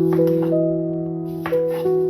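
Background music: sustained piano or keyboard chords with a soft beat, notes changing every half second or so.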